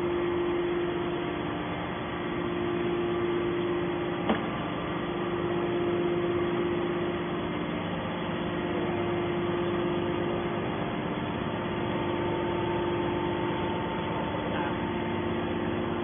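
Hydraulic power unit of a scrap metal baler running steadily between strokes: a constant electric-motor and pump hum with one sharp click about four seconds in.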